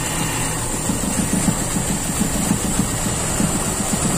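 Toyota Kijang Super's carburetted four-cylinder engine idling with an uneven, pulsing beat: a rough, limping idle that the mechanic puts down to cylinder 4 not firing, with vacuum leaks leaning out the mixture.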